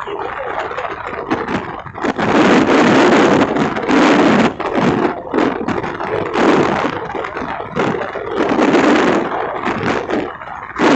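Wind rushing over the microphone in gusts, with a Honda CB Shine's single-cylinder engine running underneath as the motorcycle cruises at road speed.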